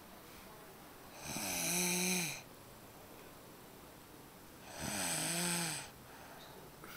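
A sleeping person snoring: two snores, each about a second long, a little under four seconds apart. Each snore has a buzzing tone that dips and then holds, with an airy hiss over it.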